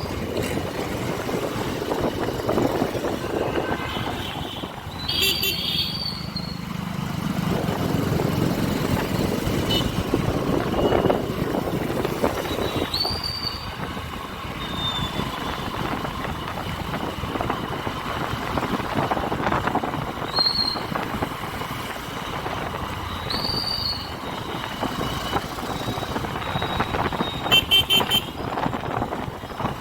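Riding noise from a Honda SP125 motorcycle moving through city traffic: a steady rush of wind and road noise with the engine under it. Short, high horn toots sound several times throughout.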